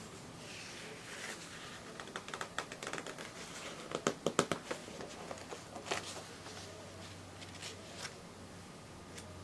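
Paper pages of a binder catalog being handled and turned: crinkling and a quick run of small clicks and snaps about two to five seconds in, loudest near four seconds, with one more near six seconds.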